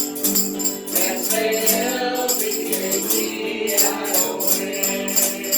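Gospel song sung with musical accompaniment and a shaken percussion instrument keeping a steady beat of about four strokes a second.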